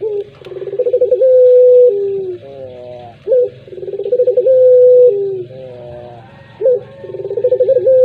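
Puter pelung, a domestic ringneck dove, cooing three times. Each coo opens with a quick stuttering run, holds a long steady note, then drops to a lower one, with faint falling notes in the gaps between coos.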